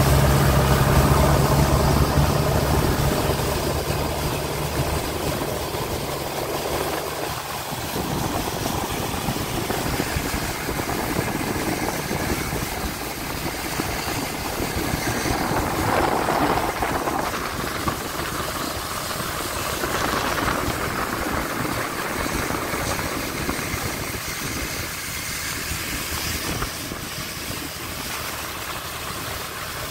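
An engine running with a low steady hum. The hum drops away about seven seconds in, leaving a steady rushing noise.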